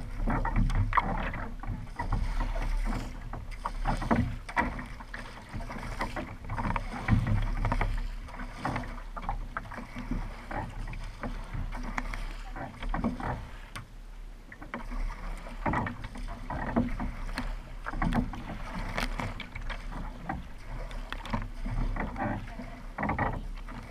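Kayak paddle strokes: the blades splash into the water on alternate sides about once a second, over a steady rush of water along the racing kayak's hull.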